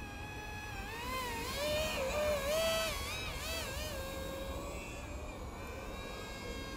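Small RC plane's electric motor and propeller whining in flight, a steady buzzing tone whose pitch wavers up and down. It grows louder about a second and a half in and eases off again after about four seconds as the plane passes.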